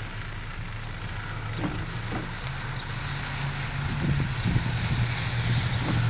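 A motor vehicle's low rumble growing steadily louder over a hiss of rain.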